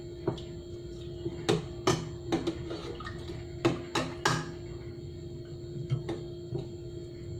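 A metal spoon clinking against a glass bowl and a stainless steel pot: about ten sharp taps, most of them in the first half, while the seasoning is spooned in and the pot is stirred.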